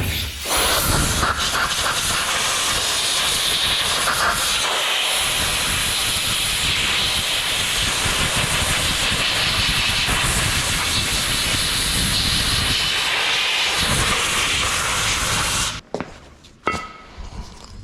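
Aerosol parts cleaner spraying in one long, steady hiss onto the brakes. It cuts off suddenly near the end, followed by a few light clicks.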